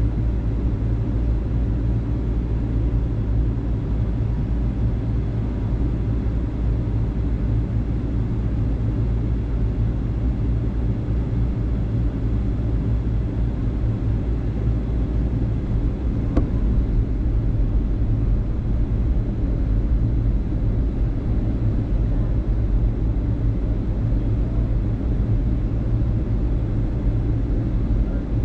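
Boeing 757-200 airliner in flight: a steady low rumble of engines and airflow, with one faint click about sixteen seconds in.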